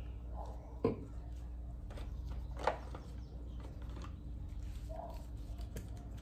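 Two sharp knocks about two seconds apart, the second the louder, as a small plastic colorant bottle and cup are handled and set down on the countertop, over a steady low hum.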